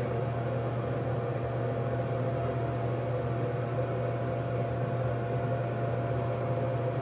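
Steady low mechanical hum with a thin, fainter higher tone held over it, unchanging throughout.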